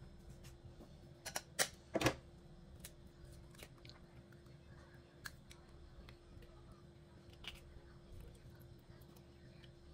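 An egg being cracked: a quick series of sharp taps of the shell between one and two seconds in, the last the loudest, then a few faint clicks as the cracked shell is pulled apart.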